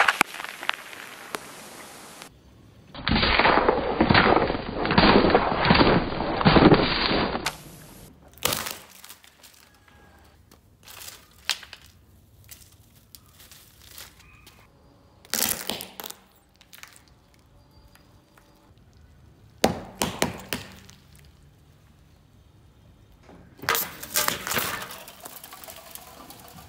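Car tyres crushing assorted household objects: a long loud crunching stretch a few seconds in, then a string of separate sharp cracks and crunches with quiet between, ending in a longer crunch as a drink can is flattened and bursts.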